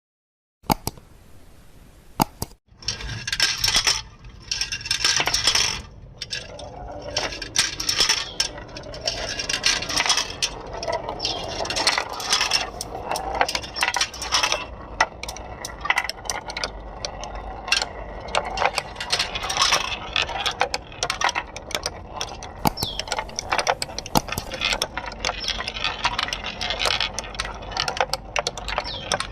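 Marbles rolling and clattering down a marble run, a dense stream of clicks and rattles as they knock along the track, starting about half a second in.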